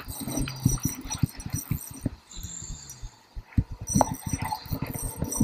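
Irregular low knocks, rustles and light clicks from a spinning rod and reel being handled right at the camera, with a quieter spell in the middle.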